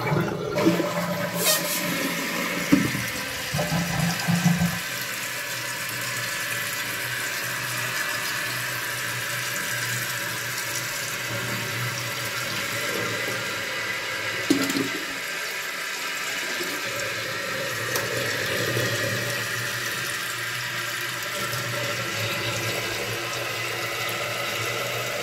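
Kohler toilet flushed with the tank lid off: the flapper lifts and the tank drains with a rush of water for the first few seconds. The fill valve then hisses steadily as the tank refills.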